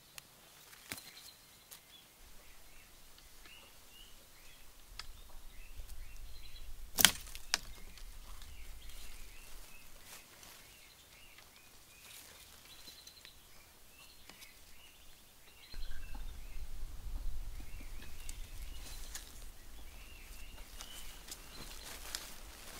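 Small birds chirping faintly in the forest, with one sharp snap about seven seconds in. Rustling and footfalls of someone moving through dry bamboo litter in the second half.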